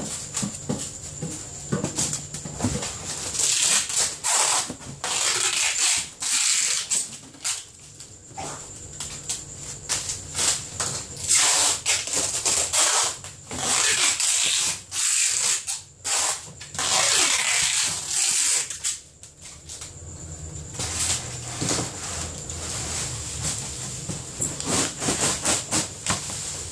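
Irregular rustling and scraping in bursts during the first two-thirds, the kind of noise made by handling plastic packing, over a steady low hum and a thin high whine.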